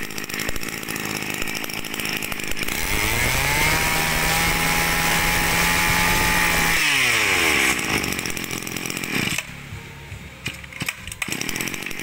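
Tanaka 20 cc two-stroke brush cutter engine running: it is revved up about three seconds in, held at high revs for about four seconds, then drops back toward idle.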